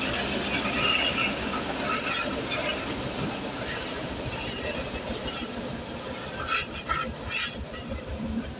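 Engine of a heavy road-construction machine running steadily, with three sharp clacks in quick succession near the end.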